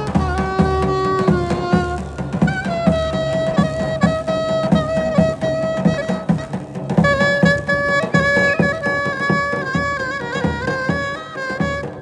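Davul and zurna playing folk music: the reed pipe holds long notes, sliding between some of them, over steady beats of the large drum.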